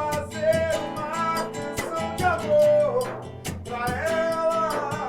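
Forró pé-de-serra music played by a trio: a melody that slides between notes over low held notes and a steady beat of sharp percussion strokes.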